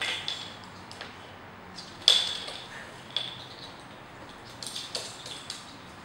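Small plastic bottle caps clicking and clattering on a laminate floor as a parrot pushes and picks them up with its beak: a few sharp clacks with a short ringing tone, the loudest about two seconds in, then a quick run of lighter clicks near the end.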